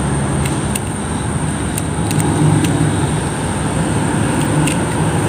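A steady low rumble, with a few faint light clicks of a metal spoon against balut eggshell as the shell is peeled.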